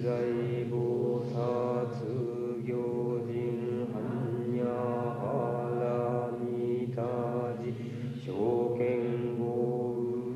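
A single man's voice chanting a Buddhist sutra in a low, steady monotone, with brief breaks for breath about seven and eight seconds in.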